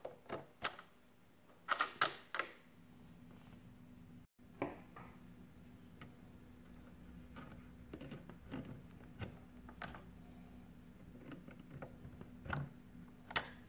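Scattered sharp clicks and knocks of pliers against the metal mounting plate and plastic hose and wire fittings of a De'Longhi espresso machine as a hose and wire connectors are pulled off. The loudest knocks come about two seconds in and near the end, over a faint steady low hum.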